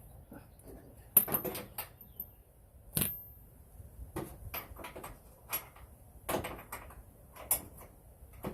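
Irregular metal clanks and knocks from a wrench and suspension parts being handled, the loudest about a second in and at three seconds, the first with a brief metallic ring.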